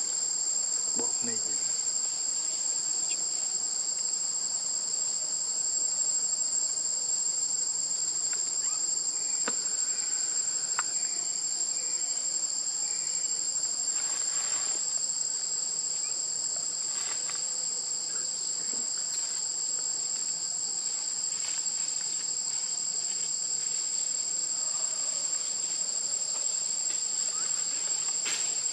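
A steady, high-pitched insect chorus that runs without a break. A few faint clicks and rustles are scattered through it.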